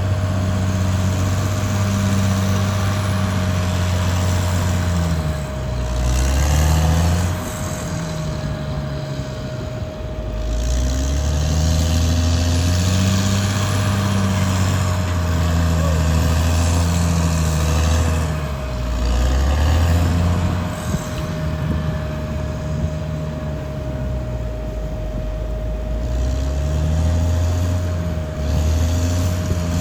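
Caterpillar D6R XL bulldozer's diesel engine working under load, its note sagging and picking up again several times as it pushes soil, with a steady high whine running over it.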